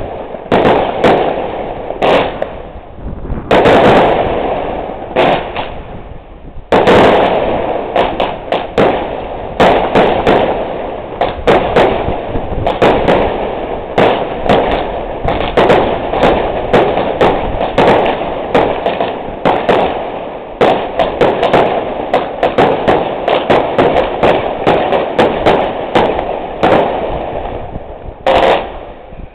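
Aerial fireworks display: a loud, continuous barrage of bangs and crackling bursts. There is a short lull about six seconds in, then the reports come several a second until they thin out near the end.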